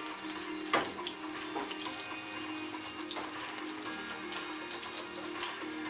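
Fish fillets sizzling in hot oil in a frying pan, a steady hiss with fine crackle, as metal tongs lift them out. There is one sharp knock of the tongs about a second in. Soft background music with held tones plays underneath.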